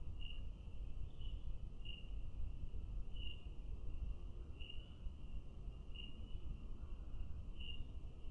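A cricket chirping in short, evenly spaced chirps, about one every second and a half, over a steady low rumble.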